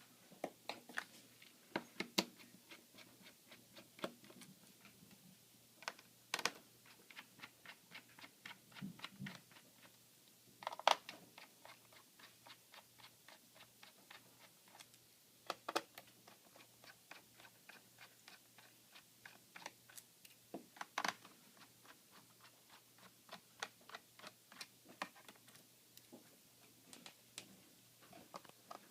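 Quiet run of small clicks and ticks, several a second, from a screwdriver working screws out of a laptop's plastic bottom case. A few louder knocks come about 6, 11, 16 and 21 seconds in.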